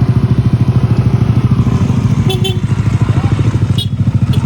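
An engine running close by with a rapid, even throb.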